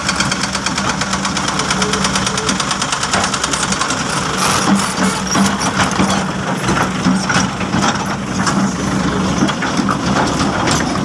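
Heavy diesel engine running steadily with a fast, even clatter, with a few louder knocks partway through.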